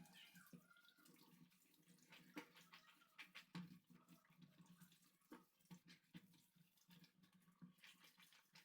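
Faint, irregular water splashing as potatoes are washed by hand in a sink.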